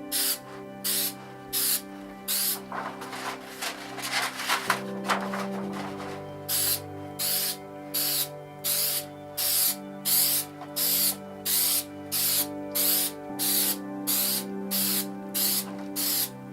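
Aerosol can of spray adhesive being sprayed in short hissing spurts, about two a second, with a gap of a few seconds in the first half.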